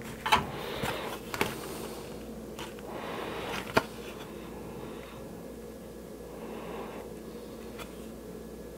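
Hard plastic parts of a vintage toy jet clicking and knocking as they are picked up and handled, with three sharp clicks in the first four seconds, then only faint handling against a steady low hum.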